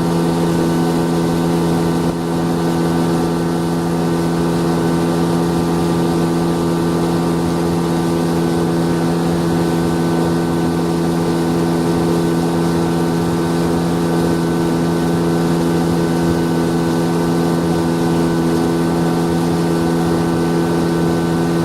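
Hidea 9.9 hp outboard motor running at steady, unchanging revs while it is being broken in.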